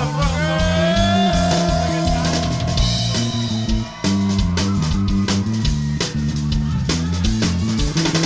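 Rock band playing an instrumental passage live: a lead guitar holds a long gliding note over bass and drum kit. The band breaks off for a moment just before halfway, then comes back in.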